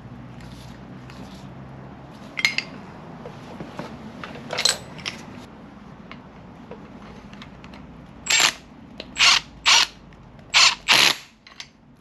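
A power tool run in five short bursts to tighten a bolt on the motorcycle's front fork, starting about eight seconds in. A few lighter clicks and knocks of metal parts come before it.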